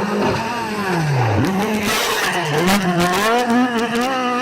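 Rally car engine at full stage pace: the revs drop steeply for about a second and a half as the driver lifts and shifts down, then climb and rise and fall again through the gears. A cluster of sharp cracks comes in the middle.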